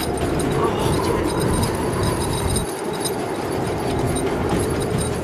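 Storm-force wind battering an anchored sailing boat, heard from inside the cabin: a loud, steady rumbling rush with faint rattling ticks, its deepest rumble easing briefly just past halfway.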